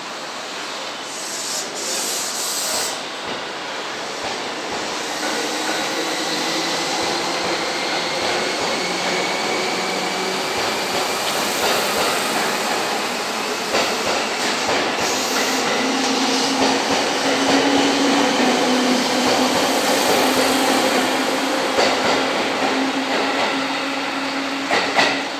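Seibu 10000 series 'New Red Arrow' limited express train pulling out of a station and picking up speed. Steady rolling noise carries a motor whine that rises slowly in pitch, with a few sharp clicks of wheels over rail joints.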